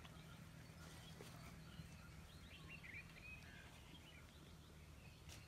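Near silence: quiet rural outdoor ambience with faint, scattered bird chirps over a low steady rumble.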